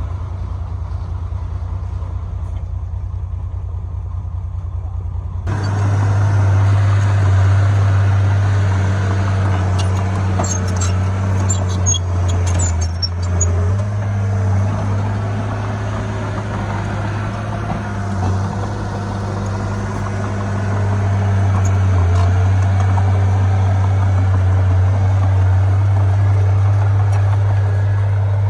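Heavy diesel earthmoving machinery engine running steadily with a low drone. It suddenly gets louder and fuller about five seconds in, with a few light clanks a little later.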